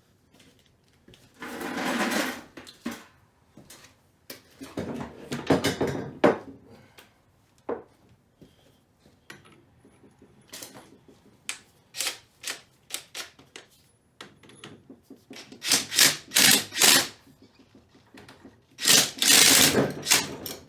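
Impact wrench hammering in bursts of a second or two, driving a bolt into the flywheel puller threads to pull the flywheel off a Yamaha TT-R225 engine, with short sharp knocks between the bursts.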